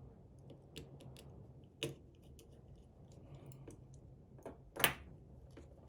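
Small clicks and taps of tools and parts while an iPhone X is being reassembled after a screen replacement, with a sharper click about two seconds in and the loudest one near five seconds, over a faint steady hum.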